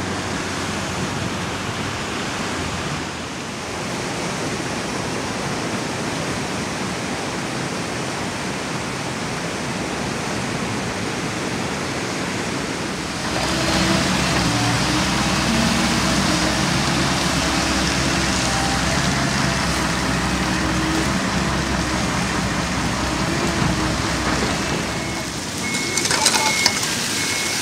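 Diesel engine of a Komatsu hydraulic excavator running steadily. About halfway through it gets louder as the excavator digs and loads mud. Near the end the engine noise drops away and sharp scraping strokes of shovels on wet pavement come in.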